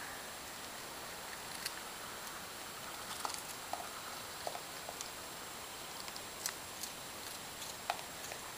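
Raccoon eating crackers, with scattered, irregular crisp crunches and clicks over a steady hiss.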